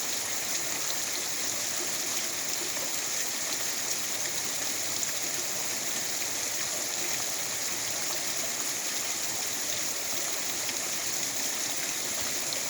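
Rain falling steadily: an even, unbroken hiss with faint scattered ticks of drops.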